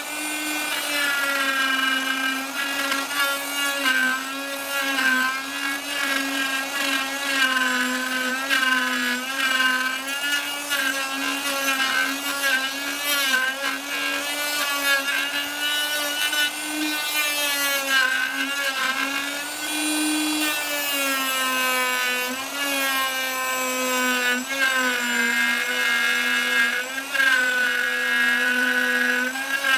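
Ryobi router running at speed while its bit cuts the edge of a pine clock blank, a steady high whine with many overtones. Its pitch dips and recovers slightly again and again as the cutter bites into the wood.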